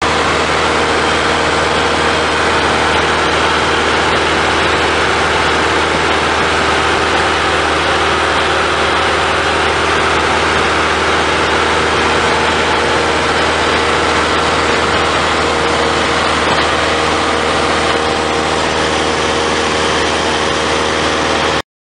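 Cessna 172's piston engine and propeller in cruise, heard inside the cabin: a loud, steady drone with wind rush over the airframe.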